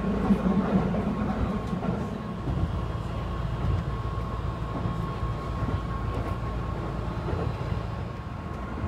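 Cabin noise of a Keihan limited express train running at speed: a steady low rumble from the wheels and running gear, with a faint steady high tone over it. A stronger drone in the first two seconds eases off.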